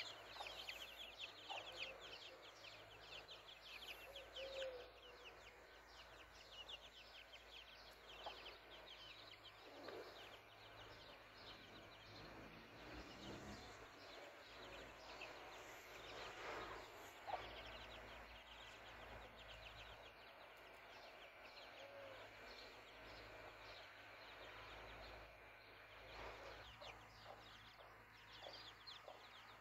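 A brood of chicks peeping softly in a rapid stream, thickest in the first few seconds and again near the end, with an occasional low cluck from the mother hen.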